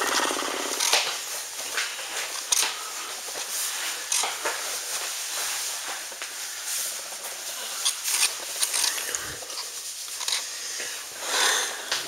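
Handling noise from a camera rubbing and bumping against clothing: rustling with scattered clicks and knocks.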